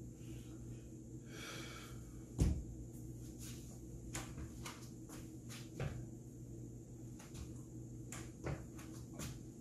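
A few knocks and thumps of a person shifting and turning on their feet on a wooden floor, the loudest a single thump about two and a half seconds in, over a low steady hum.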